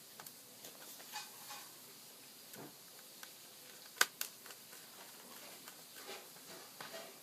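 Small clicks and light scraping of a small Phillips screwdriver turning screws back into a laptop's hard drive, with two sharper clicks close together about four seconds in.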